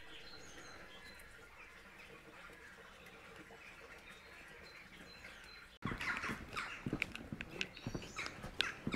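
Faint birds chirping for about six seconds, then an abrupt change to close, irregular footsteps on a wet lane.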